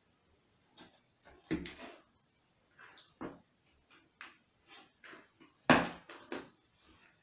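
Cat moving about inside a cardboard box: scattered scratches, scrapes and bumps of paws and body against the cardboard, with the loudest thump nearly six seconds in.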